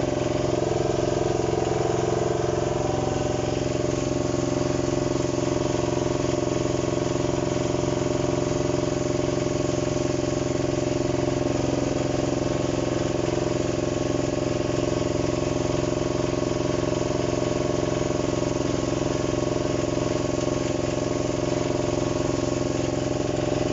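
Heavy equipment's diesel engine running steadily at a constant speed, with no revving or change.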